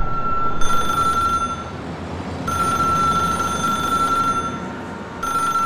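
Payphone ringing with a steady high tone, in rings of about two seconds separated by short pauses, over a low rumble of city traffic.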